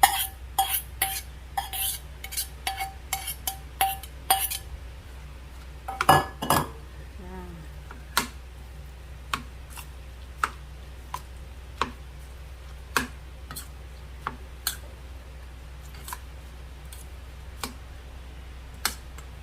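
A metal utensil clinking against a bowl while mixing a minced pork filling: quick ringing taps for about four seconds, two heavier knocks about six seconds in, then single clicks about once a second.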